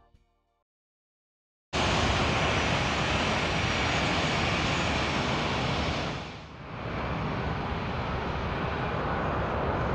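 Twin jet engines of a Boeing 767-330(ER) heard close up as it lands: a loud, steady rush of jet noise that cuts in suddenly about two seconds in and dips briefly around two-thirds of the way through.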